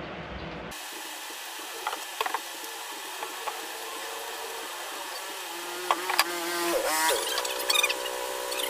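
Plywood sheets being handled and slid over one another: a few light knocks, then a squeaky scrape of wood on wood about six to seven seconds in. A steady hum sets in near the end.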